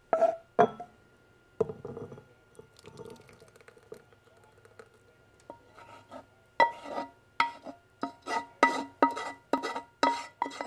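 Sauce being scraped out of a saucepan into a ceramic bowl. A utensil clinks against the pan a few times at the start, then knocks on it about twice a second in the last few seconds, each knock with a short metallic ring.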